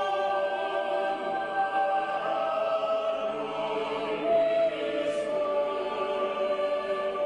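Slow background music of long held chords.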